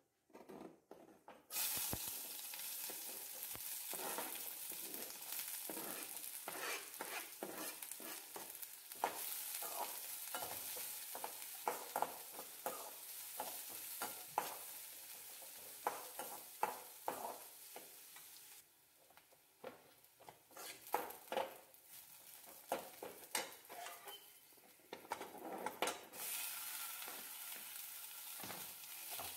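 Chopped onions and green chillies sizzling in hot oil in an aluminium kadai, a metal spoon scraping and knocking against the pan as they are stirred. The sizzle eases for a while in the second half, then rises again near the end as chopped tomato goes in.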